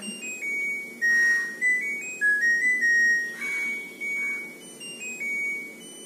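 LG Direct Drive front-load washing machine playing its end-of-cycle tune, a short melody of electronic beeps stepping up and down in pitch. It signals that the wash programme has finished.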